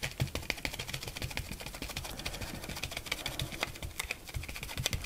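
Dry sponge dabbed rapidly through a stencil onto paper on a table, a quick irregular run of soft taps.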